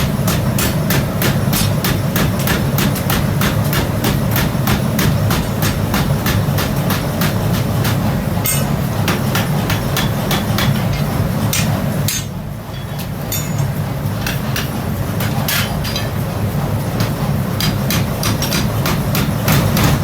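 Hammer blows on metal while forging a pickaxe head: rapid, regular strikes about four a second over a steady low hum. The strikes stop briefly about twelve seconds in, then carry on more sparsely.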